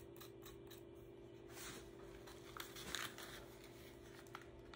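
Faint scratching, rubbing and a few light ticks from small hand work at a guitar headstock, over a steady low hum.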